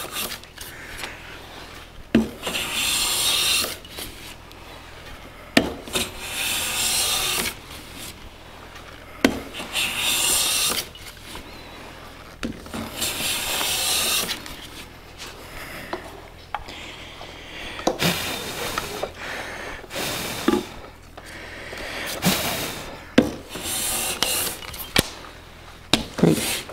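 Metal bench plane shaving a thin wooden veneer in a series of long strokes, each a hiss of a second or two that often starts with a sharp knock as the plane lands on the wood. He is planing the sawn veneer down to thickness, working a heavier end to avoid a taper.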